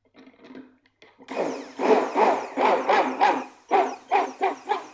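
Stick blender switched on about a second in, running in a jug of hot milk and coffee; its sound swells and fades in a steady rhythm, about three times a second.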